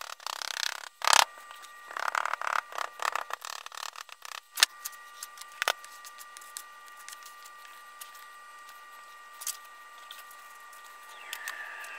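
Rubber mallet thumping once on packed oil-bonded molding sand in a wooden flask, about a second in, followed by a few seconds of scraping and rustling as the excess sand is worked and struck off with a metal bar, with a couple of sharp clicks. A faint steady high whine sits underneath.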